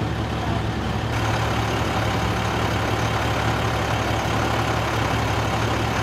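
Fire truck engine idling, a steady low drone.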